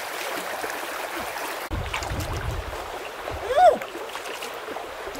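Shallow stream water flowing and sloshing around wading feet. About three and a half seconds in there is one short, high call that rises and falls in pitch.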